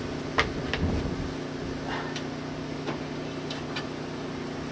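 Steady low background hum with a few faint, scattered clicks.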